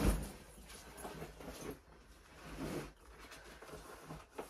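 A stuck suitcase zip being worked and the case handled: a thump at the start, then scattered rustling and scraping, and a sharp click near the end.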